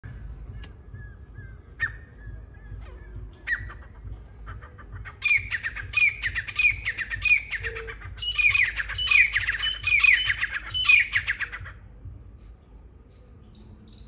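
Grey francolin (grey partridge) calling: a loud run of repeated calls, each falling in pitch, about two to three a second. The run starts about five seconds in, breaks briefly near the middle and stops about twelve seconds in, after a few fainter single notes.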